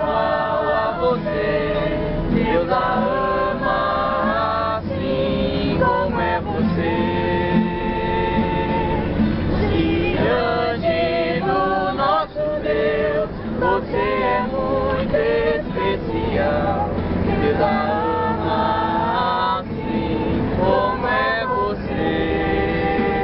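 A group of men and women singing a song together inside a bus, with the bus engine's low rumble underneath.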